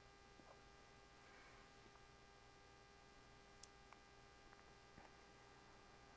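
Near silence: room tone with a faint steady electrical hum and a few faint ticks.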